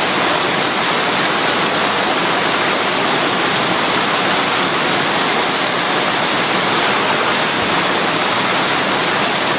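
Loud, steady rush of whitewater as a raft runs a river rapid.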